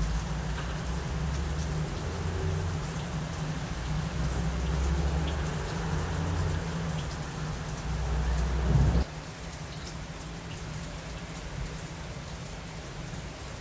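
Thunder rumbling deep and low over steady rain; the rumble swells and then cuts off suddenly about nine seconds in, leaving the rain hiss.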